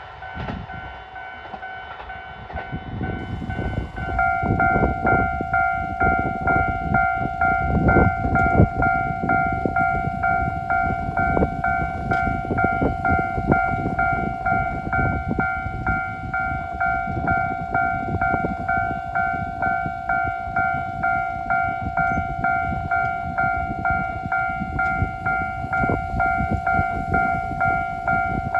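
Railway level crossing warning alarm ringing in a rapid, even, repeating ding that becomes loud about four seconds in and goes on steadily. A low rumble runs beneath it.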